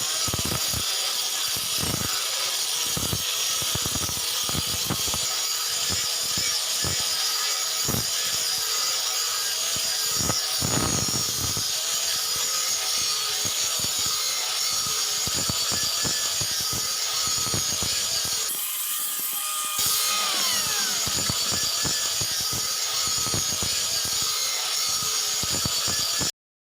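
Steel blade being shaped by abrasion: a steady rasping with many irregular strokes, and a short falling whine about twenty seconds in. The sound cuts off suddenly just before the end.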